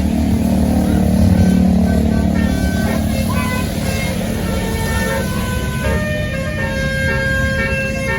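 A tour bus's engine rumbling close by while its basuri telolet horn plays a tune of held notes that step up and down in pitch, starting about two seconds in.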